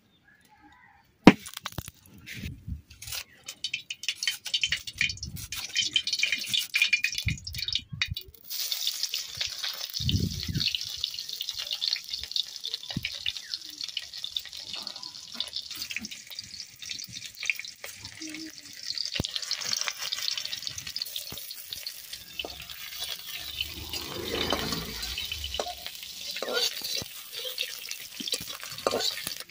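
Onion slices frying in hot oil in a large metal wok over a wood fire: spitting and crackling at first, then a steady sizzle from about a third of the way in. A metal spatula stirs them.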